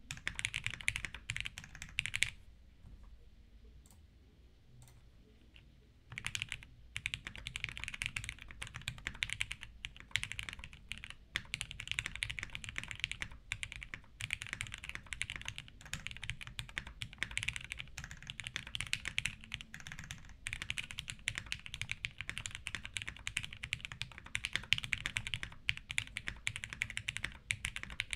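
Typing on an idb60 mechanical keyboard with pre-tooled Cherry MX Black linear switches, built plateless with 70A O-rings and fitted with original Cherry doubleshot keycaps: a dense, continuous run of keystrokes. It pauses for about four seconds a couple of seconds in.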